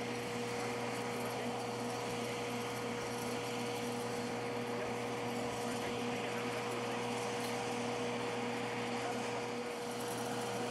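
Steady machine hum: a constant mid-pitched tone and a lower tone that pulses evenly, over a steady rushing noise.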